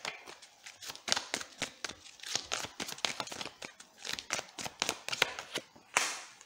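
A deck of tarot cards being shuffled by hand: a run of quick, irregular clicks and flicks of card edges, with a louder swish near the end as one card is pulled from the deck.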